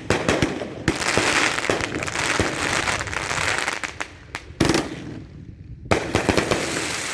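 Fireworks going off at close range: rapid sharp bangs and crackling, with fresh volleys about a second in, near five seconds and about six seconds in.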